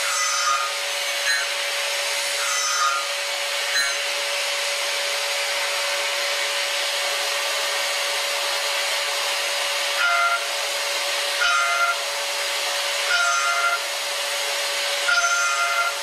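End mill trochoidal-milling a titanium blisk on a CNC machining centre: a steady hiss with a constant mid-pitched tone, and a short, shrill cutting tone each time the cutter sweeps into the titanium. These cutting tones come a few times in the first four seconds, stop for several seconds, then return about every one to two seconds from about ten seconds in.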